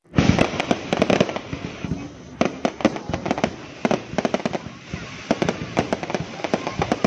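Fireworks display: rapid volleys of bangs and crackling pops from bursting aerial shells, coming in dense clusters with brief lulls between them.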